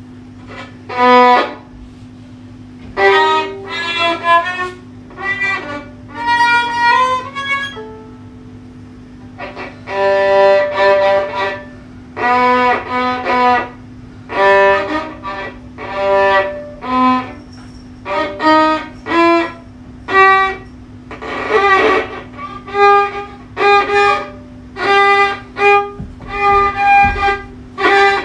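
Solo violin played with the bow: short phrases and single held notes, each broken off by a brief pause.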